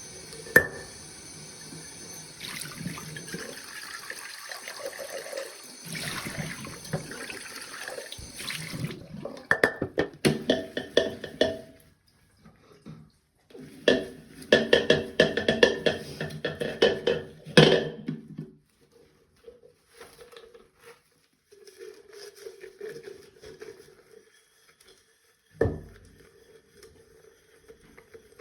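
Water running from a tap into a sink while coffee-maker parts are rinsed, with bursts of clattering and clinking as pieces are handled, and one sharp knock near the end.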